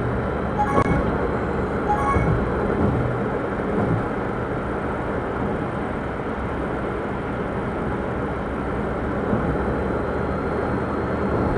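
Steady road and engine noise inside the cabin of a 2009 Daihatsu Move kei car driving, picked up by a dashcam microphone. Two short ringing ticks sound in the first two seconds.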